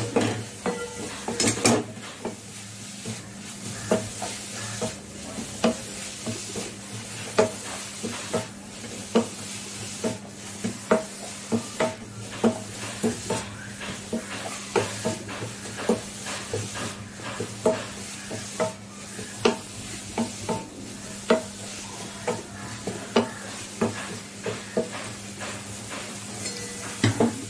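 Wooden spatula scraping and knocking against a metal kadai as chopped radish greens are stirred and fried, in repeated strokes about one to two a second over a steady sizzle.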